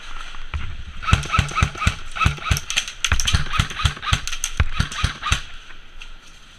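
A quick, even series of sharp thuds, about three a second, starting about half a second in and stopping near the end.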